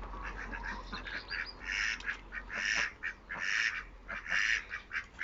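Indian runner ducks quacking: a series of short quacks, a little under one a second, starting about two seconds in.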